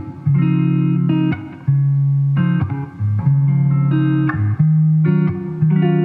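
Background music: a plucked guitar melody over a bass line, with notes changing every half second or so.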